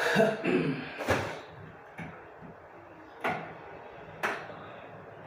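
A few words of voice at the start, then three separate knocks or clunks: one about a second in, then two more about a second apart near three and four seconds in, with low room noise between.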